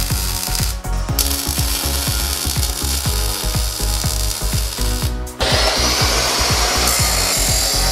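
Background music with a steady thumping beat, about four beats a second, over workshop tool noise. About five seconds in, a power tool starts up with a loud, steady rushing noise and keeps running.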